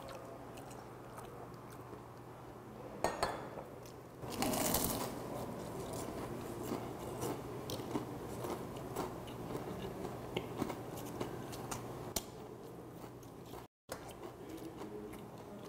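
A person biting into battered, deep-fried tiger puffer (pufferfish) meat, with a loud crisp crunch about four seconds in, then steady chewing with small crunching clicks.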